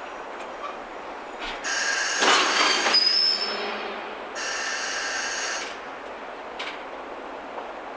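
Container flat wagons of a departing freight train rolling slowly past on a curve, wheels rumbling. Wheel squeal sets in about one and a half seconds in and again about four and a half seconds in, each time as a high, steady ringing lasting one to two seconds, with a loud clatter of wheels and couplers around two seconds in.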